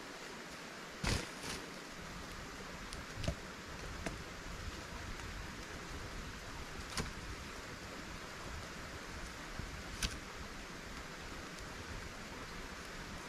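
Steady hiss of rain, with a few sharp pops from a burning wood campfire, the loudest about a second in and another near 10 seconds.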